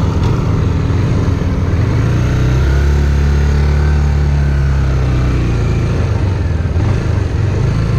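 Suzuki GZ250's single-cylinder four-stroke engine running as the bike rides along, its pitch rising about two and a half seconds in, holding, then easing back down past the middle.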